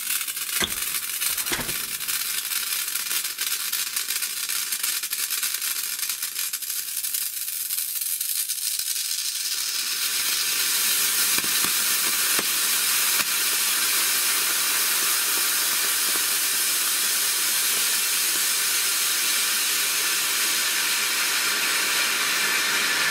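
Homemade potassium chlorate–fuelled model rocket motor burning in a static test with a steady hiss. It crackles for the first ten seconds or so, then settles into a smoother, slightly louder hiss.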